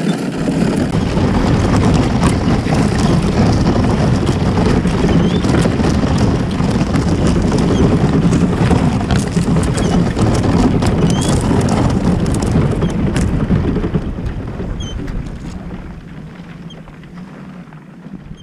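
A kayak hull being pushed through thin ice, with dense crunching and scraping of the ice breaking against the hull. Loud for most of the time, fading over the last few seconds.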